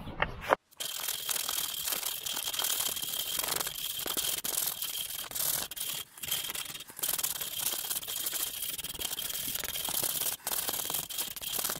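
Flexible sandpaper rubbed by hand in quick strokes over the grooved end of a wooden block, wearing down its ridges: a continuous scratchy rasping that starts about a second in, with a few brief breaks.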